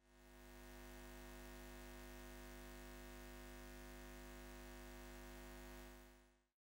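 Faint, steady low hum made of several unchanging tones. It fades in over about the first second and fades out again near the end.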